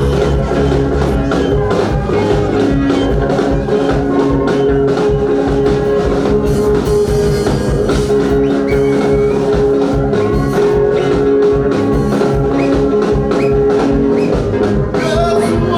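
Band music with drum kit and guitar playing at a steady beat, with long held notes over it.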